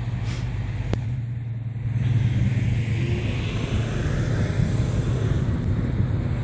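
A vehicle engine running steadily at low revs, a little louder from about two seconds in.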